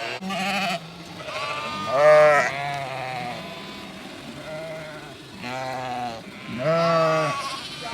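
Lambs bleating, several calls overlapping in about four bouts, the loudest about two seconds in.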